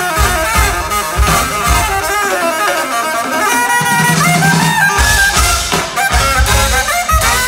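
Live brass band music: a saxophone plays a winding solo line over drums and low brass. The drums and bass drop out for about two seconds in the middle, then come back in.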